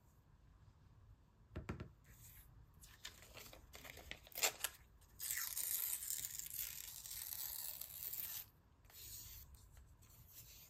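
Magazine paper being handled, with a few light knocks, then one long tear of a page lasting about three seconds that stops abruptly.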